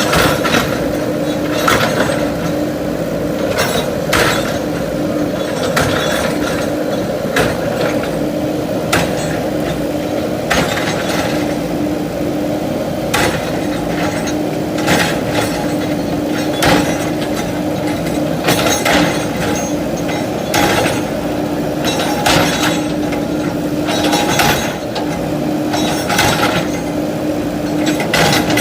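JCB 3DX backhoe loader's diesel engine running steadily while demolishing a building, with repeated irregular knocks, clinks and clatter of breaking masonry and debris.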